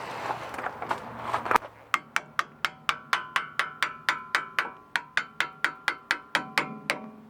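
Brake pads being scraped, then hammered into a one-piece Brembo brake caliper with quick, even taps, about four a second, each strike ringing metallically. The pads are tight in their slots because the caliper's pad surfaces weren't cleaned well enough.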